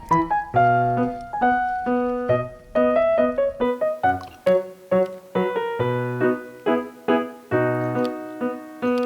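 Background piano music: struck notes and chords in a steady, bouncy rhythm.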